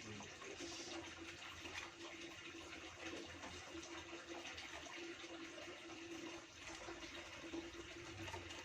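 Steady rushing background noise with a faint steady hum running through it.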